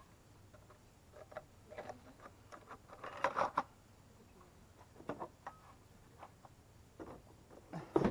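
Handling noise: scattered clicks and knocks as a chainsaw is handled with its bar cover and set into its hard plastic carrying case. The loudest cluster comes about three seconds in. The saw's engine is not running.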